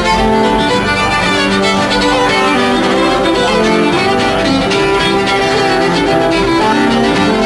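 Two fiddles playing a fast traditional fiddle tune together, backed by a strummed steel-string acoustic guitar.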